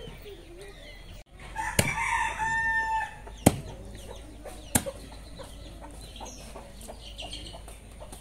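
A rooster crowing once, a call of about a second and a half beginning soon after the start. Three sharp knocks come through the crow and after it, the middle one the loudest.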